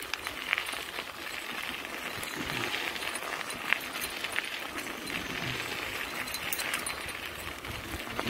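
Bicycle tyres rolling over a gravel trail: a steady hiss with scattered clicks and rattles from the bike, and one sharper click a little under four seconds in.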